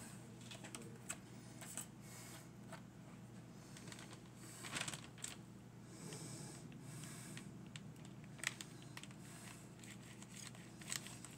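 Faint rustling and scattered light clicks of a plastic zipper bag being handled as chunks of catfish are put into it, with a slightly louder rustle about five seconds in. A faint low hum runs underneath.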